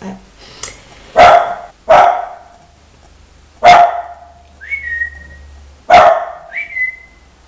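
Pet dog barking, four sharp loud barks a second or two apart, with two short high whistle-like tones between the later barks.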